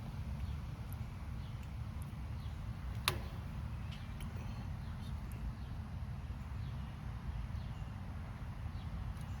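Footsteps outdoors over a steady wind rumble on the microphone, with one sharp click about three seconds in.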